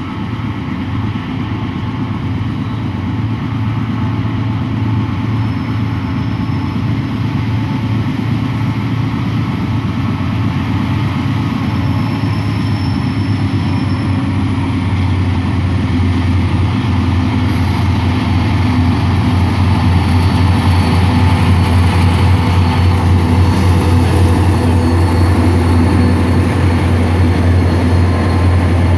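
Diesel locomotives hauling a loaded freight train approach and pass close by, a steady low engine drone that grows louder as they near.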